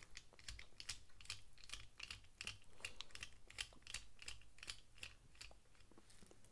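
A run of faint, irregular clicks from a small screwdriver turning out screws in a Civivi Governor folding knife's handle during disassembly.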